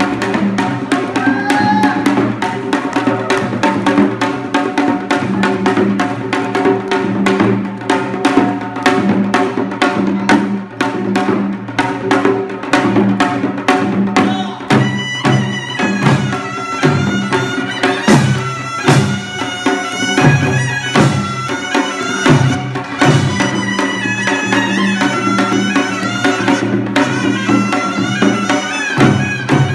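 Korean traditional instrumental music: fast, steady drumming under sustained low tones, joined about halfway through by a loud double-reed wind instrument playing a wavering, ornamented melody.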